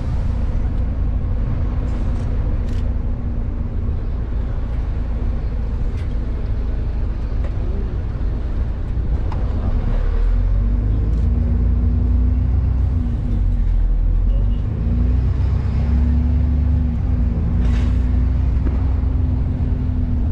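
Engine of an open-top double-decker tour bus running, heard from the upper deck, with a steady low rumble. The engine note wavers and the rumble grows louder about halfway through as the bus gets moving.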